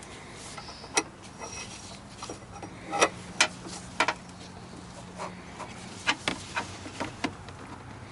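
Scattered sharp clicks and knocks of a truck battery and its hold-down parts being worked into place in the battery tray by hand. There are about eight irregular clacks over a low steady hum.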